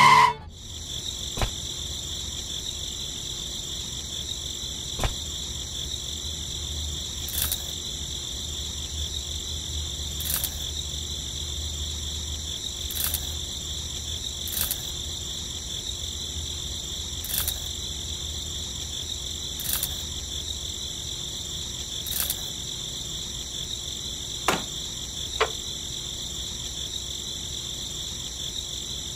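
Steady chorus of insects chirring, like crickets, with a brief higher chirp every two to three seconds. A few sharp clicks stand out, two of them near the end.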